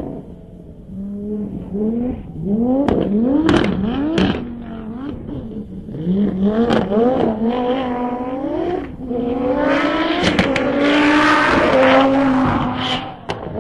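Super F1000 Nissan Micra rally car's motorcycle-derived 1000 cc engine revving hard from inside the car. Its pitch climbs and drops sharply again and again as it changes gear. It holds high revs for a few seconds near the end, with a rush of noise over it.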